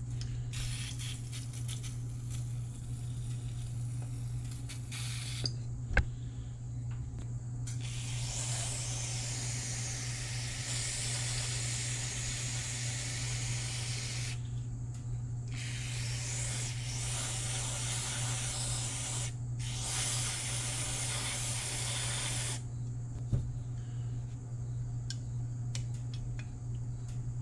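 Aerosol carburetor cleaner hissing through its thin straw in four long bursts of several seconds each, with short pauses between, as it is sprayed into the passages of a varnish-clogged carburetor. A steady low hum runs underneath, and there are two sharp clicks.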